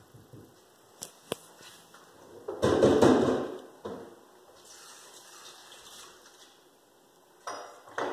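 Rustling and knocking close to the microphone while a cat plays with a feather toy held by hand. There are two sharp clicks about a second in, a loud burst of rustling around three seconds in, softer rustling after it, and two short rustles near the end.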